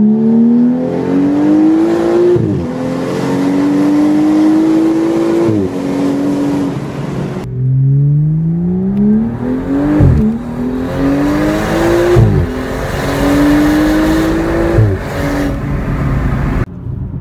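A BMW M235i's turbocharged 3.0-litre inline-six, straight-piped from the downpipe back, heard from inside the cabin accelerating hard through the gears. The engine note climbs and drops sharply at each upshift, with a second pull starting about seven and a half seconds in.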